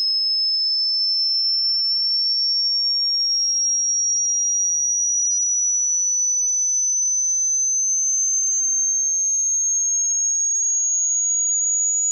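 A single high, pure electronic tone held at a steady level and rising slowly in pitch: a tinnitus-style ear-ringing sound effect, standing for ringing ears after a blow to the head.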